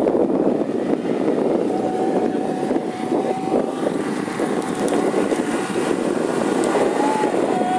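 Off-road SUV engine running under steady heavy load as the vehicle ploughs through deep snow.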